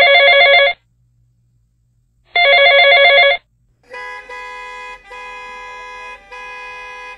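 A phone ringing twice, each ring an electronic trill about a second long. Then, from about four seconds in, long steady car-horn blasts with short breaks, as in a traffic jam.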